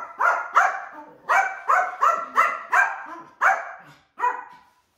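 Yorkshire terrier barking protectively at two people hugging: a rapid series of about ten sharp barks in quick runs, with short pauses between them.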